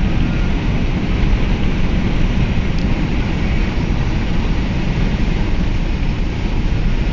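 Steady rumble of a car driving along a highway: tyre and engine noise at road speed.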